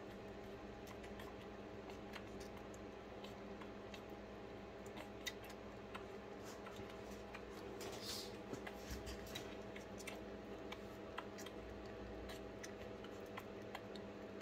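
Two-week-old puppy suckling milk from a baby bottle: many small, irregular smacking and sucking clicks over a steady low hum.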